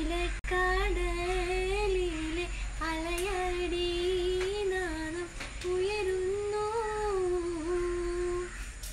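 A woman humming a slow, wavering tune in long held notes, with a short break about five seconds in.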